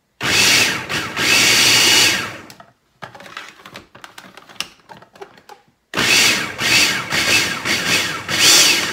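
Electric food processor running in two bursts of a few seconds each, its blade mincing onion finely, with a pause of light clicks between the bursts.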